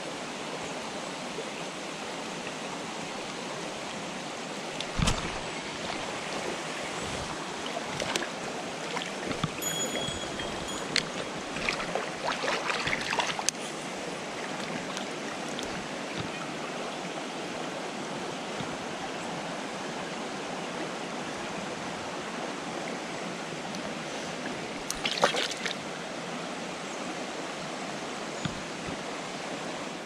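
Mountain stream water rushing steadily over rocks. Scattered clicks and knocks sit over it, with a cluster of them around a third of the way in. There is also a brief high ring at about ten seconds.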